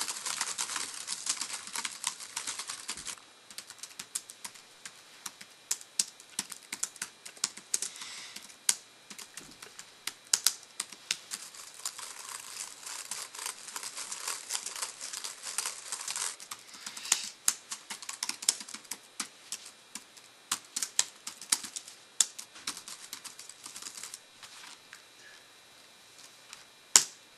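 Fast typing on a laptop keyboard: a dense, irregular clatter of key clicks in quick runs with short breaks, thinning out near the end.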